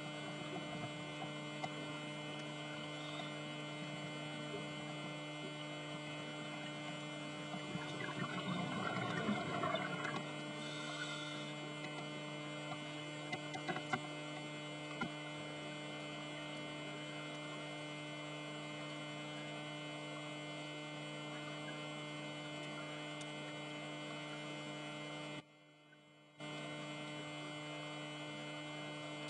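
Steady electrical hum made of several steady tones, the underwater camera's own running noise, with a crackly burst of scuba exhaust bubbles about eight to ten seconds in. The sound cuts out for about a second near the end.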